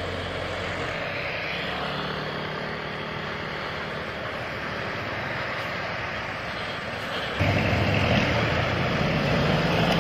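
Road traffic passing: the engines and tyres of a bus, a box truck and a car going by. About seven and a half seconds in the sound turns suddenly louder and deeper as a heavier engine takes over.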